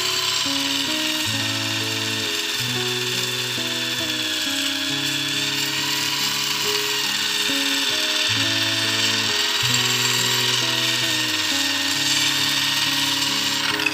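Electric drill spinning an abrasive disc in its chuck, with a power planer's blade held against it to grind it: a steady high whine with grinding hiss. The blade is being sharpened so the planer's front and back blades come out equal and the machine stops vibrating. Background music plays throughout.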